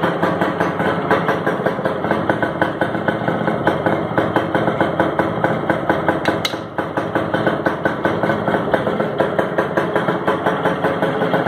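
Minsk 125's single-cylinder two-stroke engine idling with an even, fast pulse. The sound dips briefly with a click about six and a half seconds in.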